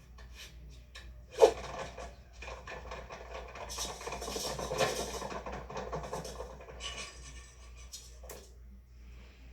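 A sharp knock about one and a half seconds in, followed by several seconds of rubbing and scraping that swells in the middle and thins out into scattered clicks.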